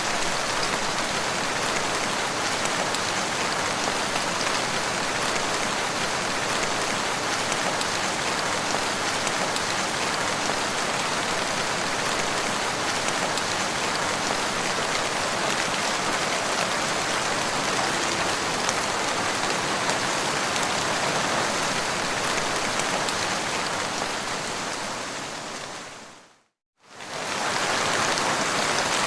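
Steady, dense rain falling on the ground. Near the end it fades out to complete silence for about a second, then fades back in, as at the seam of a looped recording.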